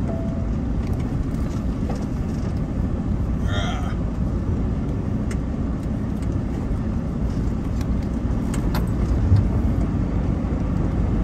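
Semi truck's diesel engine running steadily, heard from inside the cab while the truck rolls slowly along a street. There is a single thump about nine seconds in.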